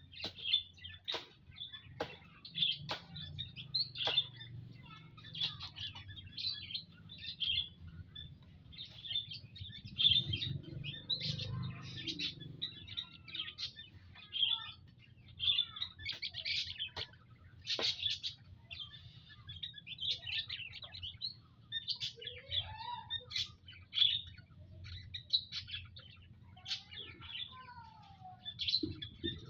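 A flock of munias (emprit) chirping constantly: many short, high chirps overlapping one another, mixed with sharp clicks, and a few lower sliding calls in the second half.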